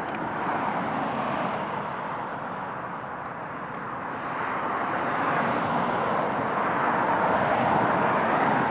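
Road traffic going by: the rushing tyre-and-engine hiss of passing vehicles, swelling once early on and again, more strongly, through the second half.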